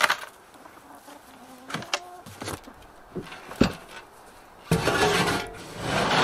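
A person moving about and handling things: scattered light knocks, a sharper knock about three and a half seconds in, then a rustling, shuffling stretch near the end.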